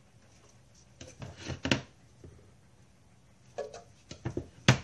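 A scoop clicking and scraping against a glass jar and the bread-machine pan as flour is scooped out and tipped in. The sounds come in two short clusters, about a second in and again in the last second or so, with one sharp knock, the loudest, just before the end.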